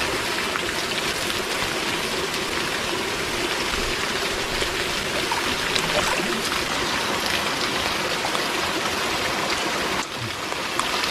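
Steady rush of running water pouring into a hot spring pool, mixed with rain, dipping briefly near the end.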